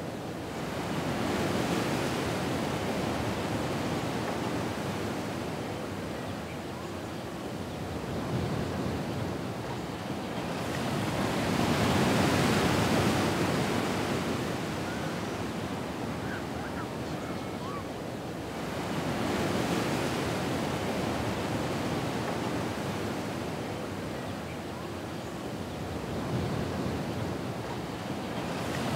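Ocean waves washing in and drawing back, rising and falling in about three slow swells several seconds apart.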